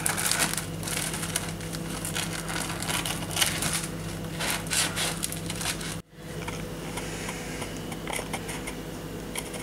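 A knife sawing through the crisp crust of a baked challah, a run of crackling scrapes, then hands tearing the loaf apart after a brief break about six seconds in.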